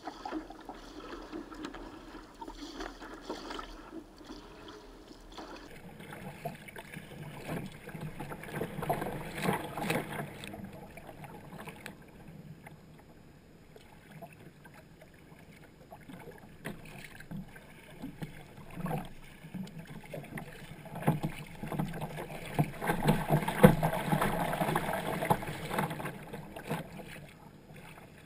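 Sea kayak paddling through choppy water: paddle blades dipping and splashing, and water rushing and slapping against the hull, close up from the bow deck. The water noise swells in uneven surges, loudest about a third of the way in and again for several seconds near the end.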